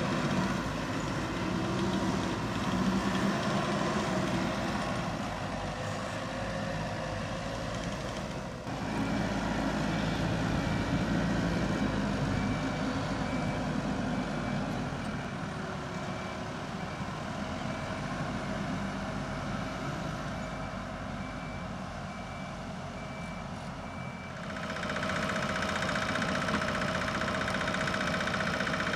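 Hydrema 912 dump truck's diesel engine running. Through the middle a reversing alarm beeps at an even pace. About 25 s in, a steady whine joins the engine as the dump body is raised hydraulically to tip the load.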